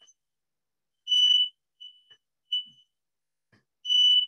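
Fire alarm sounding: a high-pitched electronic beep, with two loud beeps about half a second long, roughly three seconds apart, and fainter, shorter beeps between them.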